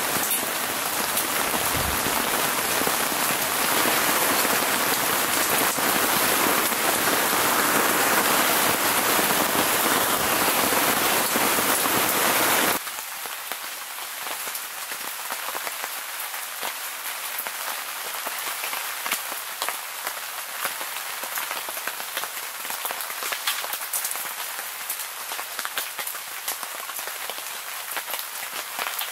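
Heavy, steady rain pouring onto a wet wooden deck. About halfway through it cuts suddenly to quieter rain pattering on a tent, with single drops ticking now and then.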